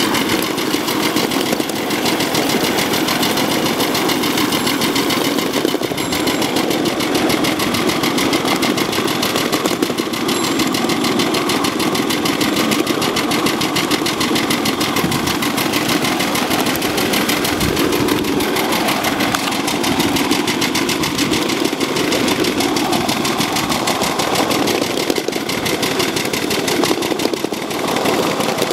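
Live steam scale model of ET&WNC No. 12, a 4-6-0 steam locomotive, running along the track at speed, its exhaust chuffing in a fast, even beat.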